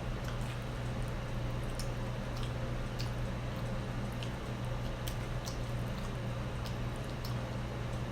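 Close-miked chewing of cheesy nachos: scattered small crunchy and wet clicks, irregular, over a steady low hum.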